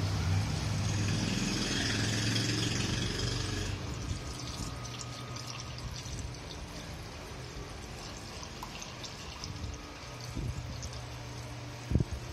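Coolant pouring from a plastic jug into a car radiator's filler neck, louder over the first few seconds and then a quieter trickle. A short knock sounds near the end.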